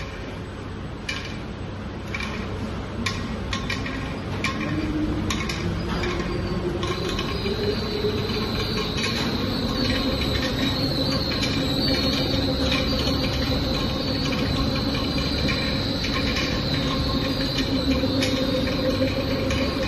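High-speed wire bunching machine spinning up and running: a few clicks in the first seconds, a hum rising in pitch as it gathers speed, then a steady running whine, with a high-pitched whine joining about seven seconds in.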